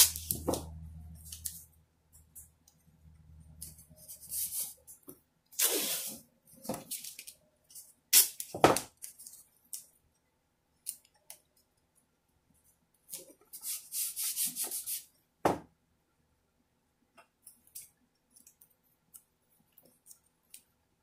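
Blue painter's tape pulled off the roll and torn into strips, heard as several short ripping bursts over the first two thirds. Rubbing and light ticks follow as the strips are pressed down over the clock face.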